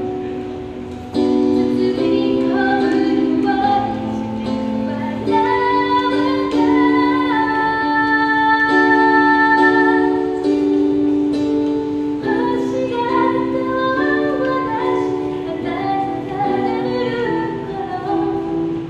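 A woman singing a song into a microphone while accompanying herself on an electronic keyboard, held chords under the melody. The music gets louder about a second in.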